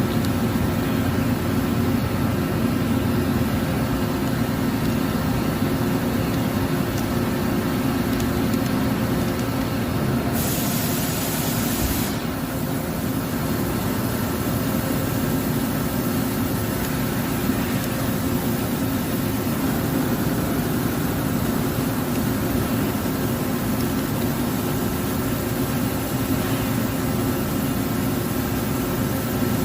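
CNC lathe running, a steady machine hum with constant tones. About ten seconds in, a hiss lasts nearly two seconds and then cuts off.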